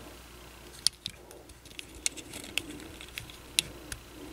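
Small hard-plastic clicks and taps as a snug-fitting plastic gap-filler piece is worked into the foot of a Transformers Siege Ironhide action figure by hand. A handful of sharp, scattered clicks, the loudest about a second in.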